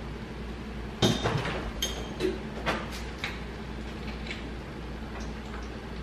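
Kitchen clatter as things are handled: a sharp knock about a second in, then a quick run of clinks and taps with a little ringing for about two seconds, over a steady low hum.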